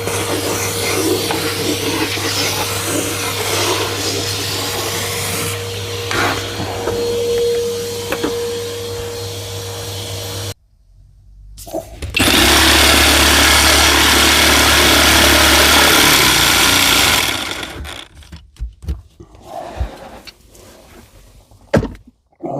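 Jigsaw with a coarse-tooth blade running steadily as it cuts a sink opening, then cutting out abruptly about ten seconds in. After a short pause a power tool runs steadily for about five seconds, followed by scattered knocks and clatter.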